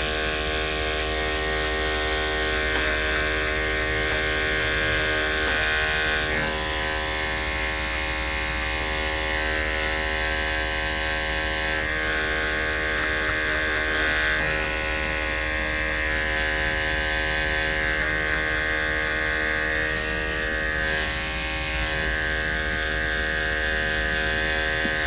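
Andis electric grooming clipper with a #40 blade running steadily as it shaves overgrown hair from a dog's paw pads, a constant buzz whose tone shifts slightly a few times as the blade meets the fur.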